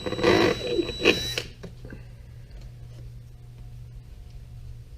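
Electric drill running briefly with a steady high whine, its 13/64 bit cutting through the plastic wall of a hedge trimmer's fuel tank to enlarge a fuel-line hole; it stops about a second and a half in.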